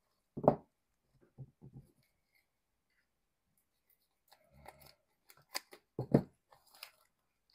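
Scissors snipping through the clear plastic sleeves that seal 1 oz silver bars, with the plastic crinkling and clicking as the bars are handled. There are two dull thumps, one about half a second in and one about six seconds in.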